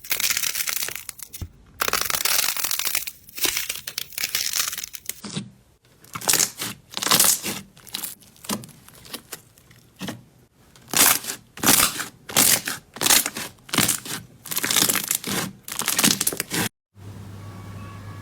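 Slime being squeezed and pressed, giving crackling, crinkling sounds. First comes a dense run of crackles, then a string of separate squeezes about once or twice a second. It cuts off sharply near the end to a faint steady hum.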